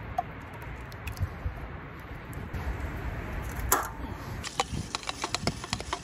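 Thick canned meat sauce emptied from a metal can into an aluminium camp pot: a wet plop about three and a half seconds in, then a run of quick irregular clicks and taps as the can is worked out over the pot.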